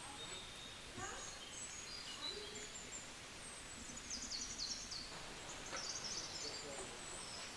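Small birds chirping and twittering faintly in short high calls over a quiet background hiss, busiest in the second half, with a soft knock about a second in.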